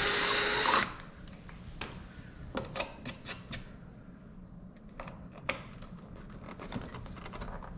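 A Bauer cordless drill runs with a steady whine while drilling a hole in the Corvette's decklid, then stops about a second in. After that come scattered light clicks and taps from fingers working small parts at the freshly drilled hole.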